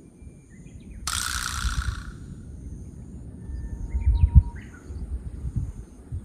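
Outdoor ambience: a few short bird chirps over a steady high-pitched drone, with a hiss lasting about a second starting about a second in and low rumbles around four seconds in.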